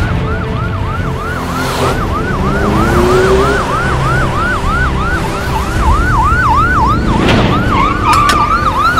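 Police siren sound effect in a fast yelp: quick rising-and-falling wails, about three a second, repeating without a break. A brief whooshing burst cuts across it about seven seconds in.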